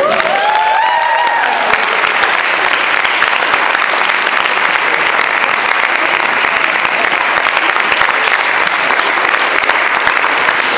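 An audience applauding: dense, steady clapping from a roomful of people, with a single voice calling out briefly over it at the start.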